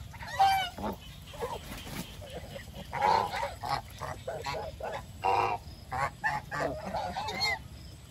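Domestic geese honking: a run of short, irregular calls from several birds, some overlapping.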